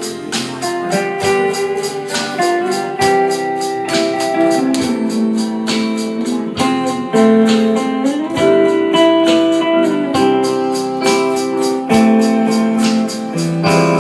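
Instrumental band music: a lead guitar plays a slow melody with sliding notes, over bass, keyboard, rhythm guitar and drums keeping a steady beat.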